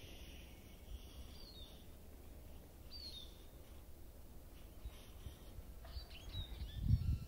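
A few faint, short falling bird chirps over a low rumble of wind on the microphone, which swells near the end.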